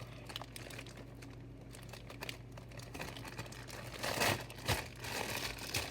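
Plastic marshmallow bag crinkling as it is handled, faint at first, then louder crackles about four seconds in.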